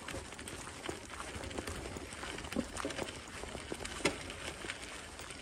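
Footsteps on a gravel path strewn with dry leaves, about two steps a second, with one sharper step about four seconds in.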